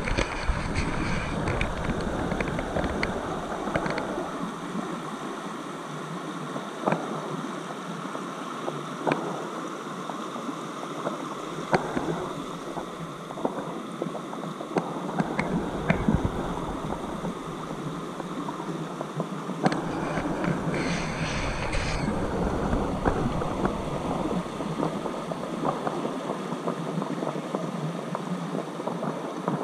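A small rocky river rushing over stones, a steady wash of water, with wind buffeting the microphone at times and occasional light clicks.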